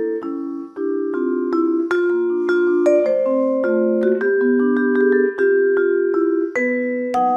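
Solo vibraphone played with soft mallets: a melody over chords, each note struck sharply and left ringing so that several notes overlap.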